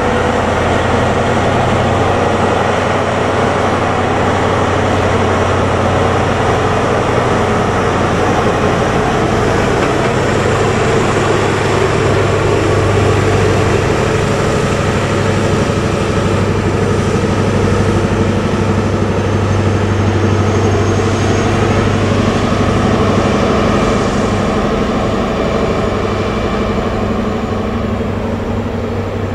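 Diesel engine of an HST (InterCity 125) Class 43 power car, a steady loud drone as the train rolls slowly through the station, easing off slightly near the end.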